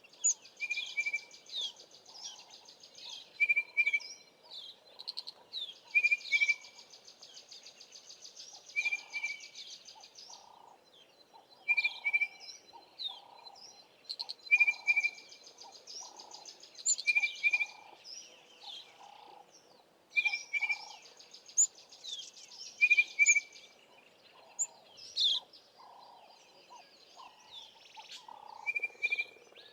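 Several wild birds singing together in bush. A clear doubled note repeats every two to three seconds over long buzzy trills and scattered chirps.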